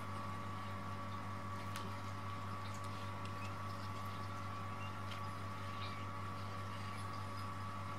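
A steady low hum with a thin steady high tone runs throughout. Over it come faint scattered soft clicks and rustles from a mother Munchkin cat and her newborn kittens stirring in a cardboard box.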